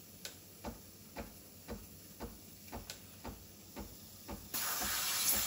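Breville Barista Express BES870 heating up for steaming: an even ticking about twice a second, then about four seconds in a sudden steady hiss of steam from the steam wand as it comes up to pressure.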